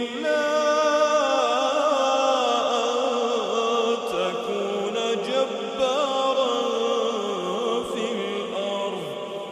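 A man chanting Quran recitation, one long melodic phrase with the voice gliding and ornamenting between notes, easing off near the end.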